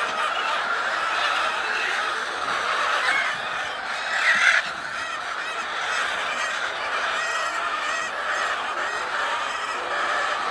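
Many hens clucking together, a steady chatter, with one louder squawk about four seconds in.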